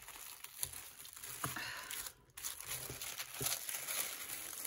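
White tissue paper rustling and crinkling as it is unfolded by hand inside a cardboard mailer box, with a few soft knocks. The rustling stops briefly a little over two seconds in.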